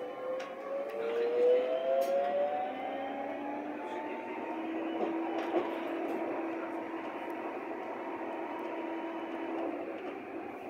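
Berlin U-Bahn HK-class train under way: the traction drive's whine rises in pitch over the first few seconds as the train accelerates, then settles into a steady hum over rolling wheel noise, with a few sharp clicks from the track.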